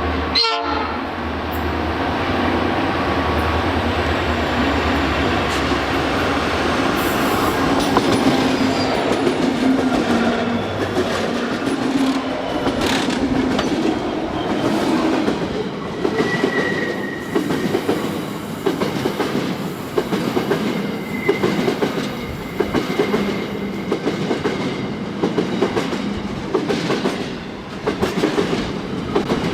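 A freight train rolling past. A low diesel engine hum in the first third gives way to the steady rumble of passing wagons, their wheels clacking rhythmically over the rail joints, with a brief faint wheel squeal now and then.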